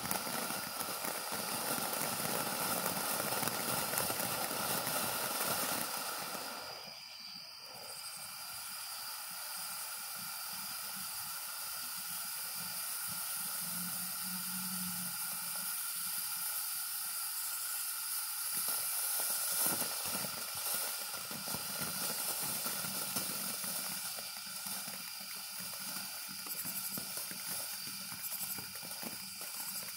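TNT Fireworks 'Pinata Buster' ground fountain firework burning, spraying sparks with a steady hiss. The hiss drops briefly about seven seconds in, then carries on.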